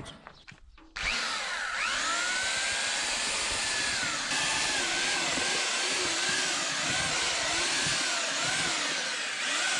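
Handheld electric construction mixer with twin paddles starts about a second in and runs steadily, its motor pitch dipping and rising over and over as the paddles churn freshly mixed cement-sand mortar.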